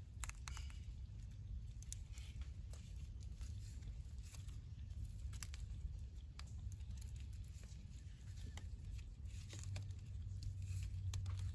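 Scattered light clicks and rustles of a mud crab being handled and bound with a cord, over a steady low rumble.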